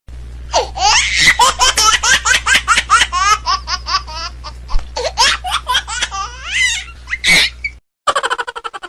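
Long stretch of high-pitched laughter in quick rising and falling peals. It cuts off suddenly near the end, and a short snatch of music follows.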